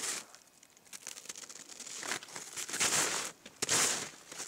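Snowshoes crunching through snow in slow, separate steps. It is quieter for about the first second.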